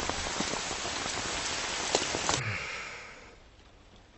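Steady rain falling, with a few sharp drop ticks over it. It cuts off suddenly about two and a half seconds in and fades to near quiet.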